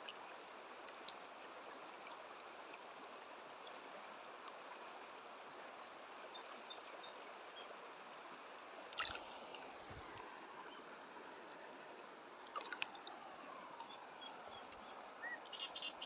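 Shallow river running over stones: a faint, steady trickling and gurgling, with a couple of brief sharper sounds about nine and twelve and a half seconds in.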